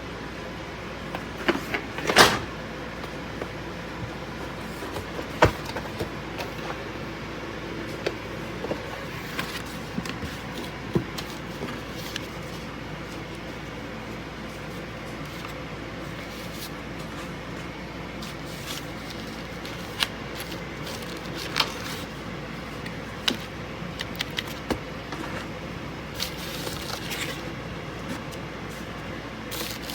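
Steady background hum with a faint whine, broken every few seconds by single sharp clicks and taps at irregular moments. The loudest tap comes about two seconds in.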